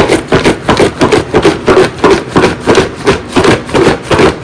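Salted cucumber and onion slices being shaken back and forth in a lidded container, sliding and knocking against its sides in an even rhythm of about three strokes a second.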